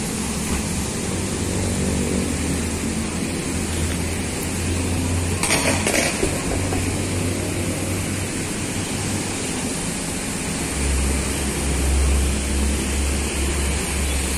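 Coach bus diesel engine running at idle, a steady low drone. There is a brief cluster of clanks about five and a half seconds in, and the drone deepens and grows louder about eleven seconds in.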